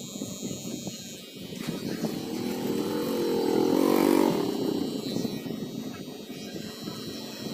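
Electric hair clipper buzzing as it trims a fade against a comb, while a passing vehicle engine grows louder to a peak about four seconds in and then fades away.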